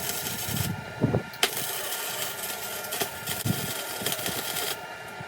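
Electric arc welding: a steady crackling hiss in two runs, a short bead at the start and a longer one from about a second and a half in until shortly before the end, with a few knocks between.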